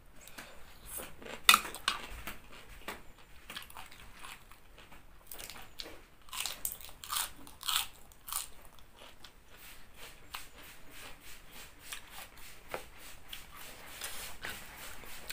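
A person chewing a mouthful of fresh lettuce and green papaya salad, a run of crisp wet crunches, loudest about a second and a half in.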